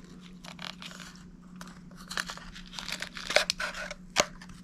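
Small phono cartridge box being opened and handled by hand: crinkling, tearing packaging and scattered light clicks, with a couple of sharper clicks near the end.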